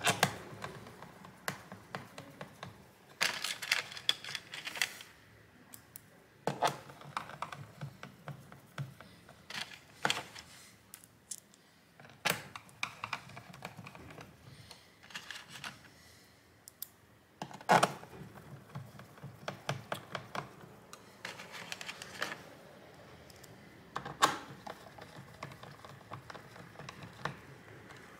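Small screwdriver driving screws into the plastic bottom cover of an MSI Vector 16 HX laptop: clusters of quick light clicks and scrapes every few seconds, with a few sharper single taps.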